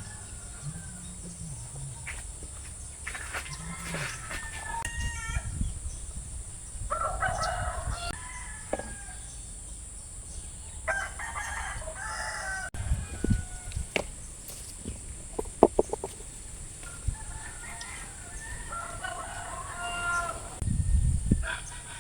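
Rooster crowing three times, each crow about a second and a half long, with chickens clucking in between over a steady high-pitched hiss.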